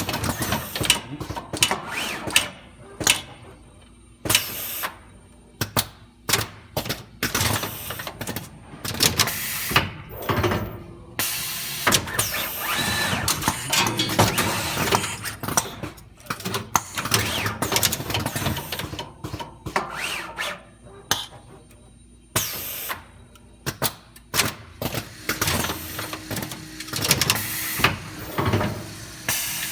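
Workshop tool noise: short runs of a power drill among irregular clicks, knocks and clatter of hand tools and parts.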